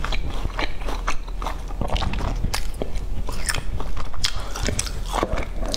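Close-up chewing of a mouthful of crispy fried pork: irregular crunches and crackles, several a second.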